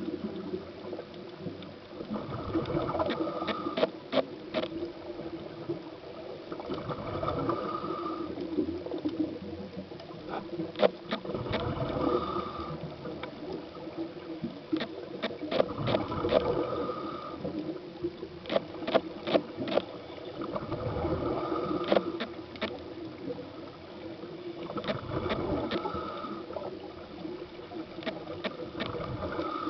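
A scuba diver's breathing heard underwater through a regulator: a hiss on each inhale and a rush of bubbling exhaust, the cycle repeating about every four to five seconds, with scattered sharp clicks.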